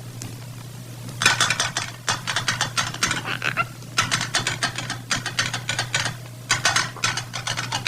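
Rapid clattering clicks in dense runs, like metal or dishes rattling, starting about a second in and pausing briefly midway, over a steady low hum.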